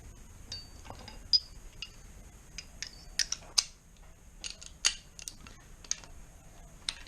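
Irregular metallic clicks and clinks of a socket wrench being worked onto the cylinder head bolts of a Rover V8, some clinks ringing briefly, the loudest about one and a half, three and a half and five seconds in.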